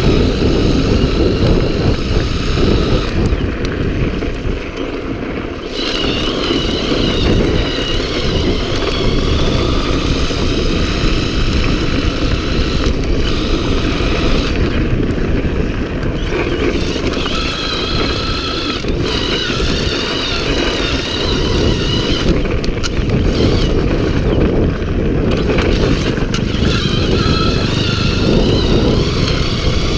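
Homemade electric bike ridden fast over a dirt motocross track: wind buffeting the microphone and the ride rattling over rough dirt, with an electric motor whine that wavers up and down in pitch and drops out for a few stretches.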